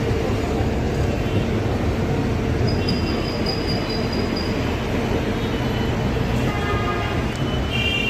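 An escalator running: a steady mechanical rumble with a constant low hum, and faint high squeals about three seconds in and again near the end.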